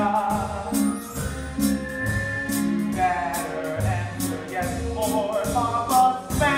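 Live pit orchestra playing a brisk show tune, with a melody line over sustained low notes and a steady beat of sharp percussive hits.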